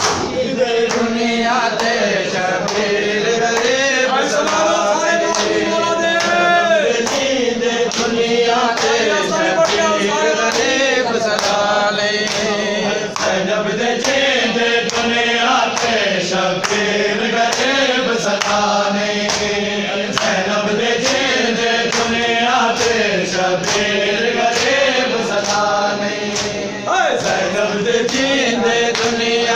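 Men reciting a nauha (Shia lament) in a chant, with a steady beat of hands slapping bare chests in matam.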